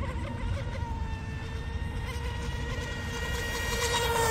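Mini Mono RC speedboat's Rocket 2948 3450 kV brushless electric motor and propeller running at full throttle: a steady high-pitched whining buzz that grows louder near the end as the boat comes closer.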